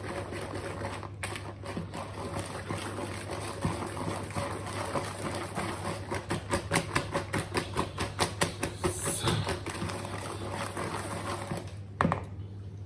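Brownie batter being mixed by hand: quick, even stirring strokes, about three a second, with a sharp knock near the end as the mixing stops.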